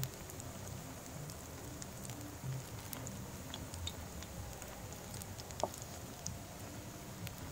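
Battered cauliflower pakoras deep-frying in hot oil in a wide metal pan: steady sizzling with many small pops and crackles. One sharp knock a little past halfway.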